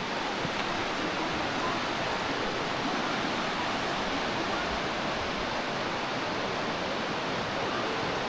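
Steady, even rush of a mountain river flowing over rocks and shallow rapids.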